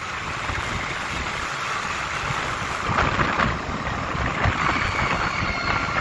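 New Holland T3.75 tractor's 75 hp common-rail diesel engine running steadily as the tractor drives downhill, with wind buffeting the microphone.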